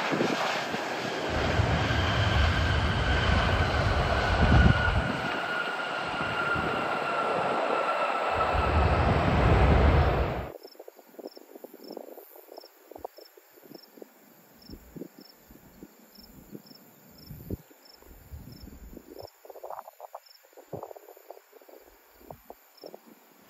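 Jet airliner's engines running loud as it passes, a rumble with a whine that slowly falls in pitch. About ten seconds in the sound cuts off abruptly, leaving quiet with faint high chirps about twice a second.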